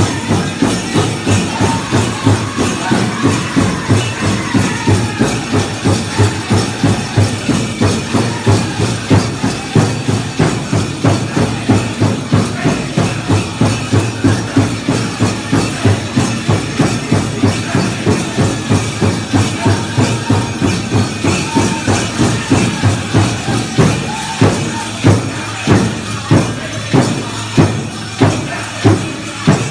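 Powwow drum group singing a chicken dance song over a steady, fast drumbeat, with the jingle of the dancers' ankle bells. Near the end the drumbeat turns to louder, spaced strokes about one a second.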